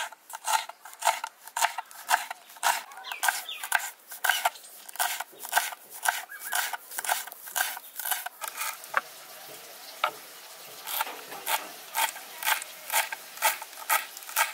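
Kitchen knife chopping green chillies and then coriander leaves finely on a wooden cutting board: a steady run of sharp chops, about three a second, with a short pause a little past the middle before the chopping picks up again.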